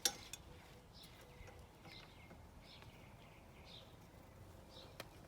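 A sharp click right at the start, then faint short bird chirps about once a second, each sliding down in pitch, with another click near the end.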